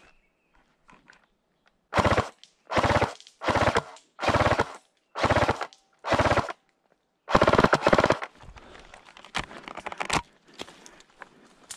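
Airsoft electric rifle (AEG) firing seven short full-auto bursts of BBs, each a rapid rattle of shots, with the last burst the longest. The magazine runs dry, and a few faint clicks follow.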